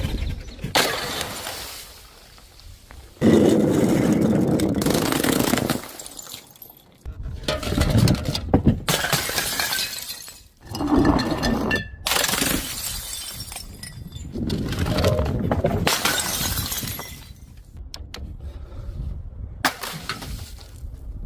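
Glass bottles breaking and shattering again and again, in a string of loud stretches of a second or a few seconds each that start and stop abruptly.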